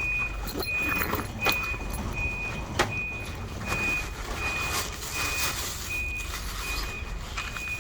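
A vehicle's reversing alarm beeping steadily, about one short high beep every 0.7 seconds, over a low engine rumble, with a few sharp clicks.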